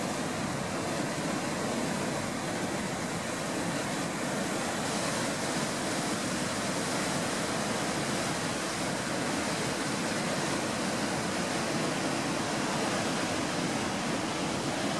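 Whitewater rapids of the Merced River rushing over granite boulders: a steady, unbroken rush of water noise.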